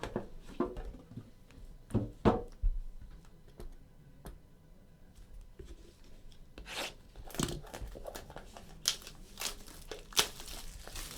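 Packaging of a sealed trading-card box being torn and crinkled open by hand, in irregular rasps, with two sharp knocks about two seconds in.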